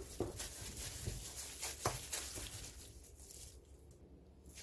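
Wooden spoon working gochujang into a stainless steel mixing bowl: a few soft knocks and taps in the first two seconds, then quieter scraping.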